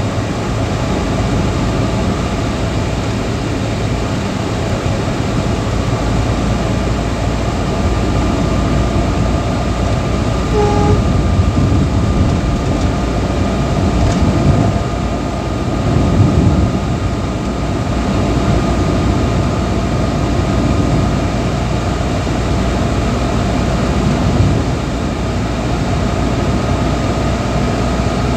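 Steady road and engine noise heard inside a moving car's cabin at highway speed: a low rumble of tyres and engine with wind, with a short beep about eleven seconds in.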